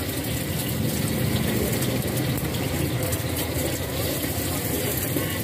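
Gas wok burner running steadily under a carbon-steel wok, with an egg sizzling in hot oil and a metal spatula scraping against the wok as the egg is broken up.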